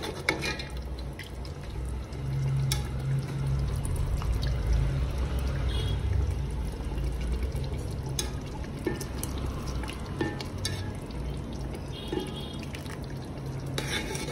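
A spoon scooping thick chicken masala gravy out of a cooking pot, with a few sharp clicks of the spoon against the pot, over a steady low hum.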